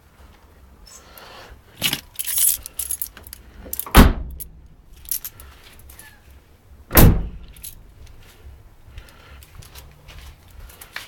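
Keys jangling, then two heavy door thumps about three seconds apart, over a faint low hum.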